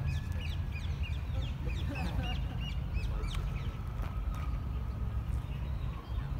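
Small birds chirping in quick repeated notes through the first few seconds, with a quacking waterfowl call about two seconds in, over a steady low rumble.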